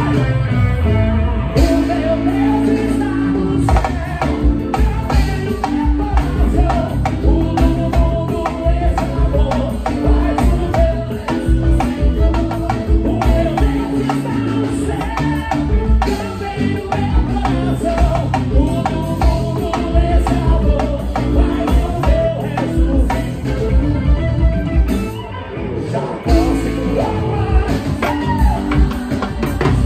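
Live band playing a song with a lead singer, electric guitar and a steady drum beat.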